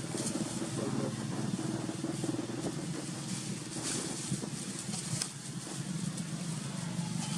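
A steady low mechanical hum runs throughout, with dry leaves rustling and crackling now and then as young monkeys scuffle in the leaf litter.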